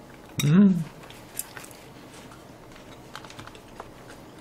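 A woman's short closed-mouth hum, about half a second long, rising then falling in pitch, as she takes a bite of food; after it, faint scattered clicks.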